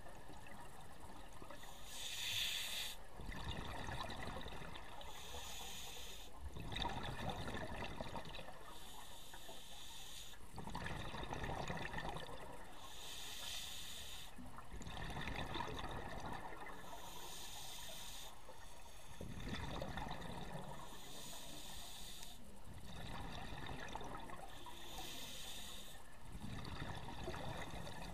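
Scuba diver breathing through a regulator underwater: each breath a short hiss of inhaled air followed by a longer gurgling rush of exhaled bubbles, about one breath every four seconds.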